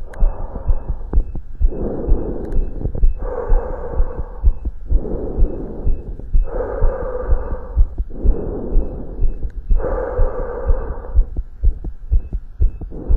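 A person's own heartbeat heard through a stethoscope on the chest during exercise: fast, closely spaced low thuds. Over it comes a rushing noise that swells and fades about every second and a half, which is hard breathing heard through the chest piece.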